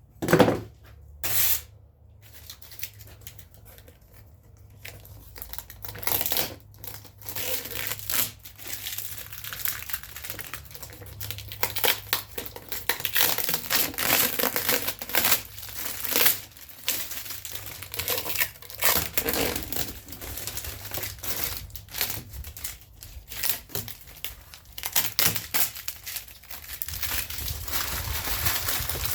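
Irregular crinkling, crackling and tearing sounds from hand work. A few sharp clicks come in the first couple of seconds, and after about five seconds it settles into dense, uneven crackling.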